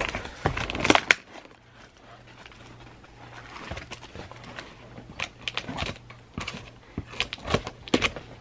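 Mailer packaging crinkling and rustling as it is handled, loudest about a second in, then scissors cutting into the package near the end.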